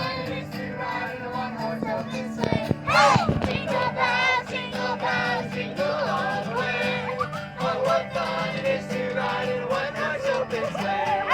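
Group of carolers singing a Christmas carol over a steady low hum, with a loud rising cry about three seconds in.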